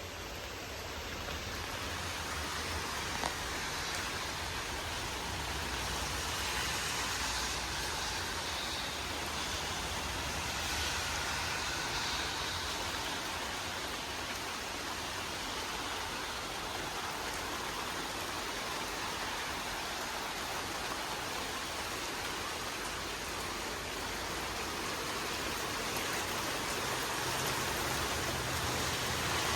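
Steady rushing noise of rain and wind as a squall line moves in, with a low rumble underneath. It grows a little louder in the first few seconds.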